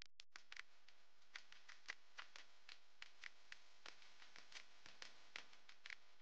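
Near silence, with faint scattered clicks a few times a second.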